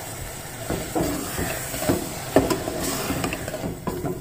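Onion-tomato masala hissing in a metal pot with water just added to it, and a large metal spoon knocking and scraping against the pot a few times as it is stirred.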